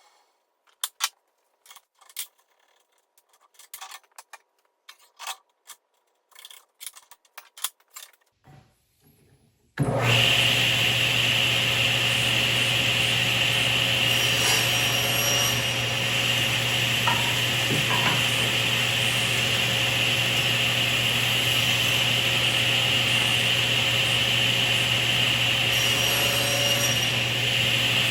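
Scattered light clicks and knocks, then about ten seconds in a table saw sounds abruptly and runs loud and steady, with a high whine over a low hum.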